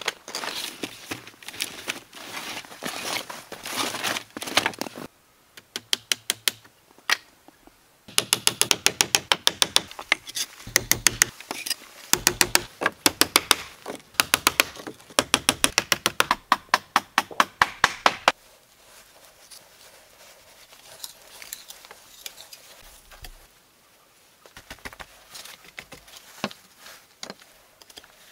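Rapid, regular sharp knocks on wood, several a second, as of nails being hammered into pallet-board shingles; quieter, scattered taps follow in the last third.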